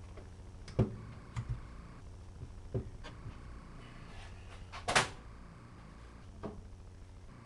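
Carburetor parts and small tools being handled on a workbench: scattered light knocks and clicks over a low steady hum, with one brief louder rasp about five seconds in.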